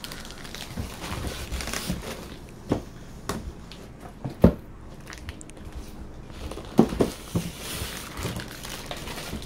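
Unpacking handling noise: a plastic bag crinkling, and cardboard and styrofoam packing scraping and rubbing as the boxed item is lifted out. A few short sharp knocks, the loudest about halfway through.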